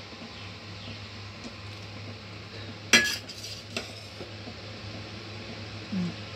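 Metal ladle stirring soup and knocking against the side of a stainless steel stockpot: two sharp clinks about three seconds in, the first louder, over a steady low hum.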